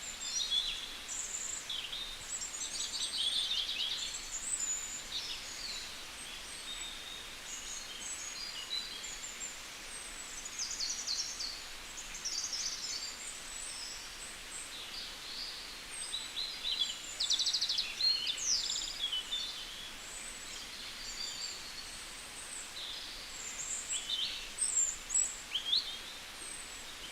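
Several birds calling in forest: many short high chirps and quick trills, one after another, over a faint steady hiss of background noise.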